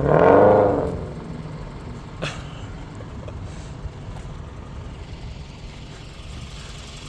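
Supercharged 427ci LS V8 rising in pitch under throttle, peaking loudly in the first second and falling back. It then settles to a low, steady rumble, with a single sharp click about two seconds in.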